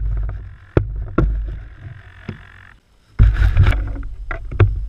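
Handling noise on a model airplane's underside camera as the plane is pulled out of bushes: sharp knocks and clicks over a low rumble, then a loud burst of rustling leaves and branches about three seconds in, followed by more knocks.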